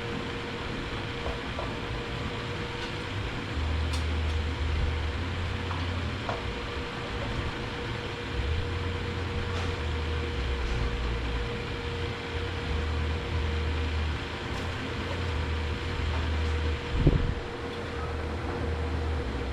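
An upgraded servo being worked into a Ford AOD transmission case: a few light knocks and one sharp thump near the end, over a steady fan-like hum with a deep drone that comes and goes.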